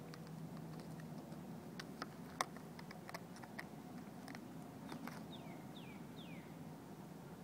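A calico cat rubbing, nuzzling and biting at a small plastic pot of fresh catnip, making faint scattered clicks and rustles, with one sharper click a little over two seconds in. Near the end there are three short falling chirps, likely a bird.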